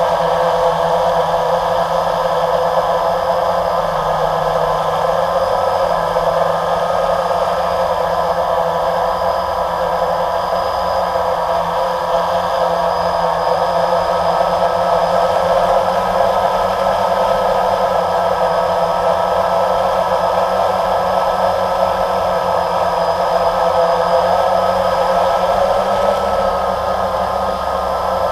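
Multirotor drone's electric motors and propellers running in flight, heard close from the onboard camera: a steady, even whine made of several tones over a constant hiss.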